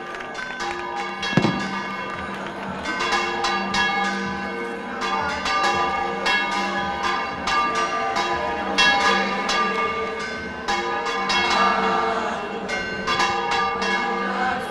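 Church bells pealing in a fast, continuous repique, strike after strike ringing on and overlapping. A single sharp bang stands out about a second and a half in.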